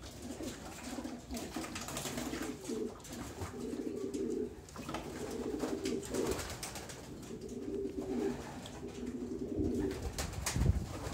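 Racing pigeons cooing: low, throbbing coos repeated in several phrases. A few louder low thumps come near the end.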